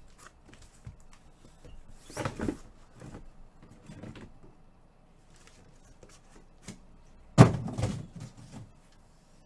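Handling noises: a short rustle about two seconds in, then a single sharp thump about seven and a half seconds in that dies away over about a second.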